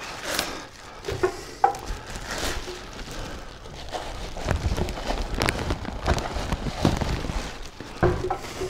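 Clear plastic wrapping around a new band saw crinkling and rustling as it is handled, with irregular crackles and a few dull knocks.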